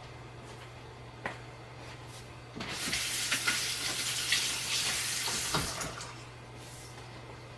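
Kitchen faucet turned on and running for about three and a half seconds while a hand is rinsed under it, then shut off. A short click comes shortly before the water starts.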